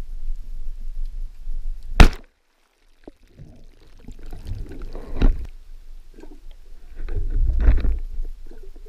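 Band-powered speargun firing underwater: one sharp, loud clack about two seconds in. After it comes uneven rushing and sloshing water noise, loudest near the end.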